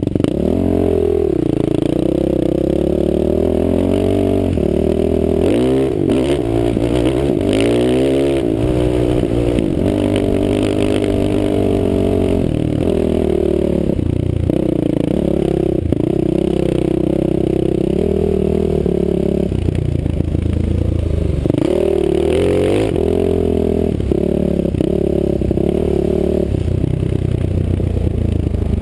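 Off-road vehicle engine running under way on sand, its pitch rising and falling repeatedly as the throttle is worked, with the sharpest revs about a second in, around six to nine seconds in, and again a few seconds before the end.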